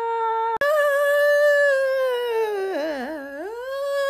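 A woman singing one long drawn-out note in a mock-operatic way. The note breaks briefly about half a second in and jumps higher, then sags, dips low with a wobble around three seconds in, and climbs back up.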